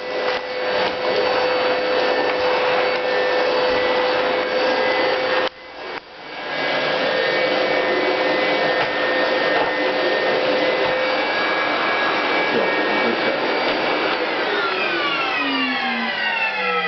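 Household vacuum cleaner running loud and steady. About five and a half seconds in the sound drops out briefly and climbs back. Near the end a set of whining tones slides steadily downward over the running noise.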